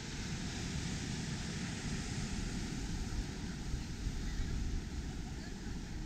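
Steady outdoor noise of wind buffeting the microphone over the wash of surf breaking below the pier.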